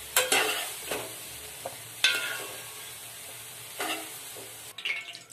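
Soaked soya chunks sizzling as they fry in oil in a kadai, with a spatula scraping and stirring them against the pan three times. The sizzling cuts off suddenly near the end.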